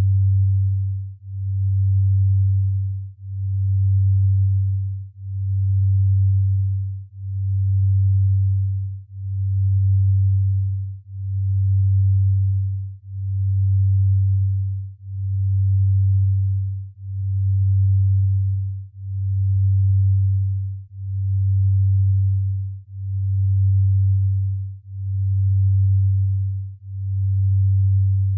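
Binaural-beat tone: a pure low hum that swells and fades evenly about once every two seconds. This is the slow delta-range beat used for sleep entrainment.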